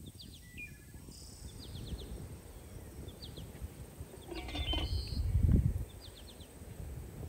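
Small birds chirping in short repeated trills. About four and a half seconds in, a metal lid clinks as it is set onto a black cooking pot, followed by a dull low rumble.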